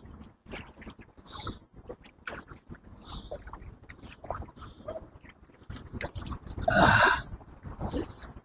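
Kayak paddle strokes through canal water: irregular splashes and drips as the blades dip in and lift out, with a louder half-second sound about seven seconds in.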